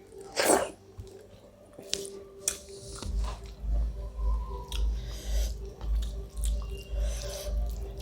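A person chewing a mouthful of food close to the microphone, settling into steady chewing about twice a second from about three seconds in. About half a second in there is a short, loud breathy burst, followed by a few wet mouth clicks.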